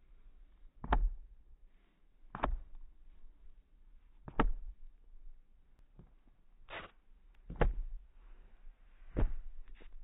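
Six dull thuds, about one every one and a half seconds: a boy's sneakers landing on a skate ramp as he runs on it, over faint outdoor hiss.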